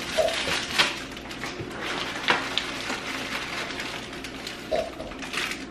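Plastic wrappers crinkling and rustling while a gingerbread house kit is unpacked, with a cardboard box being opened; a few sharper crackles stand out.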